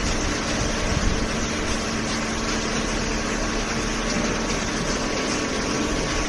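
Hydraulic cardboard baler running: steady machine noise with a constant low hum.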